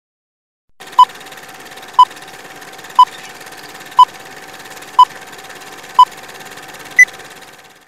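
Old film-leader countdown sound effect: short beeps once a second, six at the same pitch and a seventh at a higher pitch. Under them runs a steady hiss with a faint constant hum, which fades out near the end.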